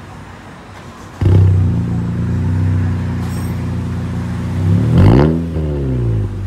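Honda Civic FK hatchback with an aftermarket downpipe and exhaust starting about a second in and settling into a steady fast idle. Near the end it is revved once, the pitch rising and falling back.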